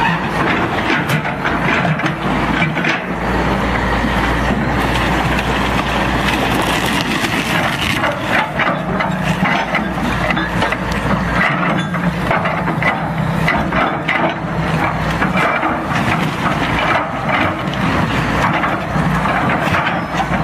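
Excavator's diesel engine running steadily under load while its bucket crushes and breaks up a wrecked white hull and debris, with repeated irregular cracking and crunching.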